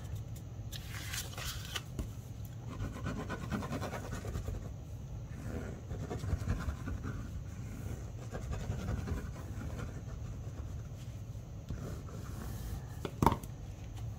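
Faint scratching and rubbing of a liquid glue bottle's tip dragged across textured cardstock as glue is squeezed on in squiggles, with the paper shifting on the table. A single sharp tap comes near the end.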